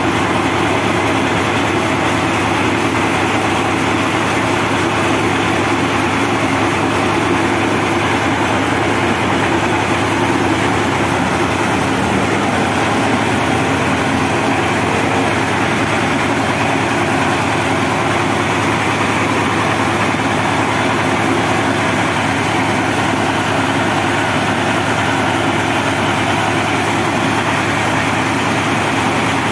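Diesel engine driving a homemade band sawmill, running steadily with no load: the band blade is turning but not cutting.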